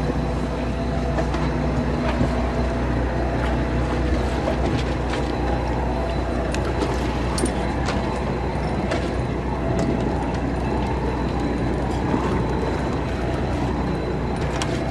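Fishing boat's engine running steadily, a low drone with a constant hum, with scattered faint clicks and knocks over it.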